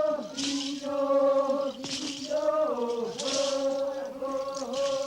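Yukuna Indian men chanting a ceremonial song in long held notes, with slight pitch slides. A short hissing sound recurs about every second and a half.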